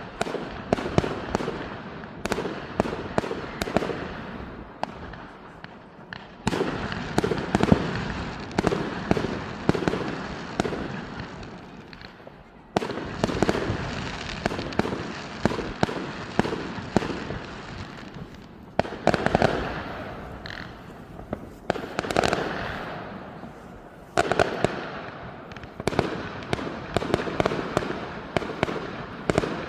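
Fireworks display: a dense barrage of bangs and crackling that comes in waves, with a new loud volley starting every six seconds or so.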